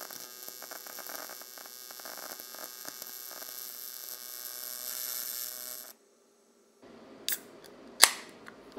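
Electric welding arc buzzing steadily with a hiss as weld is built up on an engine connecting rod, cutting off abruptly about six seconds in. A few light clicks and one sharp knock follow near the end as the welded rod is handled.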